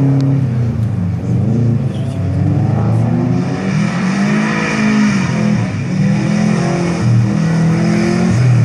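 Subaru Impreza's flat-four boxer engine revving hard and easing off again and again as the car is driven through tight turns, its pitch rising and falling several times.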